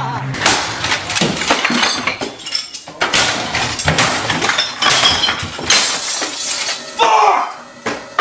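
Glass bottles and other objects being smashed with a stick: repeated crashes about once a second, with glass shattering and clinking.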